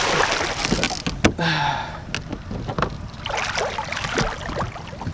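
Water splashing and sloshing against the side of a boat as a hooked paddlefish thrashes at the surface, loudest in the first two seconds, with a sharp knock about a second in.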